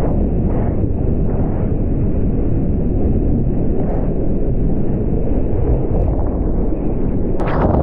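Loud, muffled rush of surf and wind over a GoPro's microphone, steady and without any engine tone. Just before the end it turns brighter and splashier.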